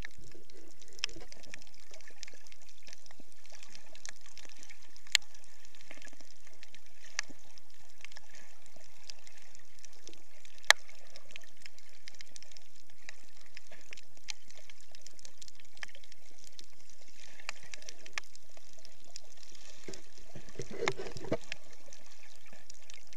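Underwater sound picked up by an action camera in its waterproof housing: a steady hiss with scattered small clicks and crackles, two sharper clicks about five and ten seconds in, and a short low burble of moving water near the end.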